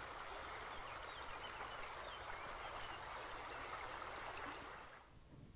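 Shallow creek water running over a stony riffle, a steady rush that fades out near the end.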